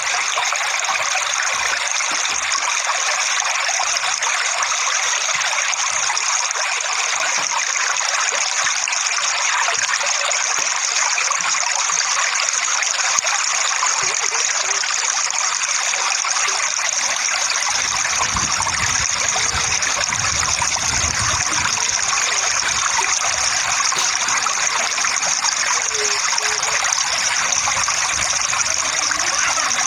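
Running water, a steady even rush like a stream or small waterfall, with a deeper rumble swelling in for a few seconds past the middle.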